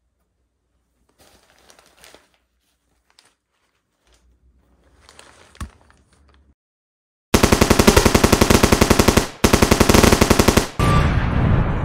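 Rapid automatic machine-gun fire starting about seven seconds in, coming in three loud bursts back to back with short breaks between them.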